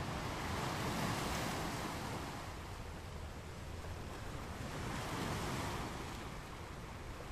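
Wind rushing over the microphone, swelling twice: about a second in and again about five seconds in.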